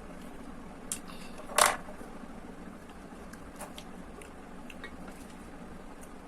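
Eating sounds from a bowl of instant tom yam noodles: a few light clicks and one short, loud slurp-like noise about a second and a half in, over a steady low hum.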